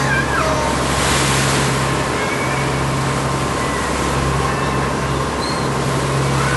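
Sightseeing boat's engine running steadily under a constant rush of wind and water.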